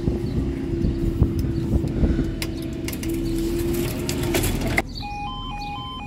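A steady low hum with scattered knocks that cuts off suddenly about five seconds in. Then a level crossing warning alarm sounds, two tones stepping back and forth several times a second.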